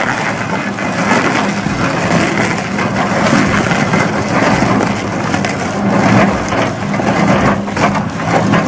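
Excavator-mounted stump crusher attachment grinding into a tree stump: dense crunching and splintering of wood over the steady drone of the excavator.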